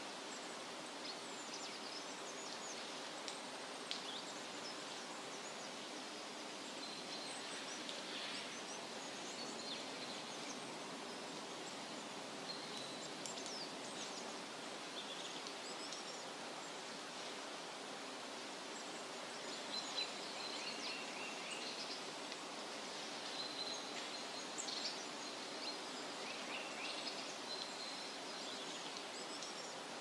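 A shallow forest stream running over rocks, a steady rush of water, with small songbirds chirping and calling on and off above it, busiest in the second half.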